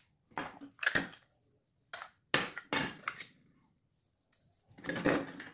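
Grey plastic lamp housing being pried apart by hand, with short cracks and snaps of plastic. There are several quick ones about a second in and again around two to three seconds in, then a longer crackle near the end.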